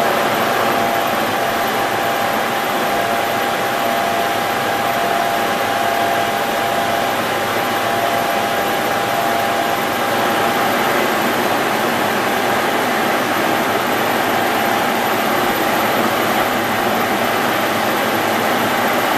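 Stanko 6T12 milling machine running with its face mill taking a 1 mm cut across cast-iron machine ways: a steady noise of the spindle drive and the cutter in the iron, with a steady whine in it that fades out about halfway through.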